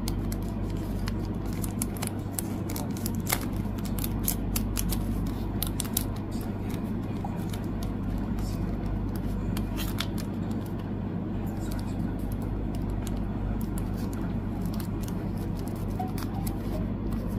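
Thin clear plastic photocard sleeves crinkling and ticking as cards are slid into them and handled. The ticks come in clusters of quick, sharp clicks, mostly in the first half, over a steady low background noise.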